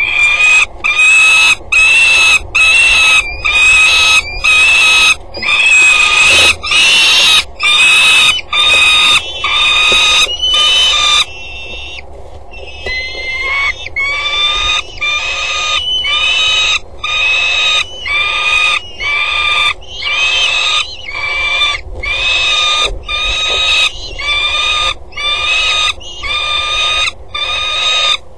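Peregrine falcon calling over and over, about one and a half calls a second, each call short and high-pitched. The calls break off briefly about twelve seconds in, then start again at the same pace.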